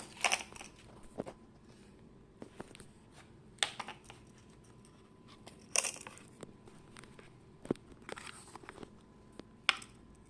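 Intermittent handling sounds from the earbuds and their packaging: a few sharp clicks and short rustles, spaced a second or two apart.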